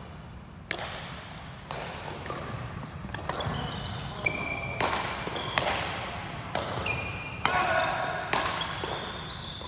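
Badminton rally: sharp racket hits on the shuttlecock about once a second, ringing in a large sports hall, with short high squeaks of court shoes between the strokes.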